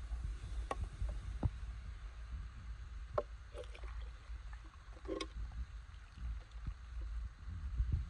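Shallow mountain stream running steadily, with a handful of short knocks and splashes, typical of rocks being shifted in the water.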